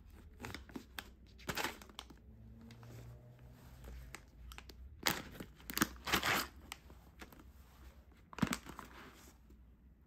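Foil-lined coffee bean bag being torn open along its tear strip, then the stiff foil crinkling and crackling as the bag is pulled open, in irregular bursts with the loudest about five to six and a half seconds in and another near eight and a half seconds.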